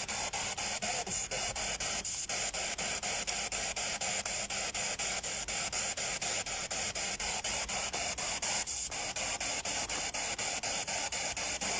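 Spirit box scanning through radio frequencies: a steady hiss of static broken by brief, even dropouts about five times a second.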